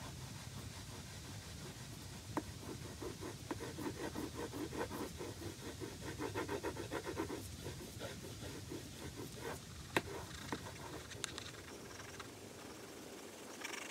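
Woodless 9B graphite pencil scratching rapidly back and forth on drawing paper in quick hatching strokes, several a second, with a couple of sharper ticks; the strokes thin out and stop near the end.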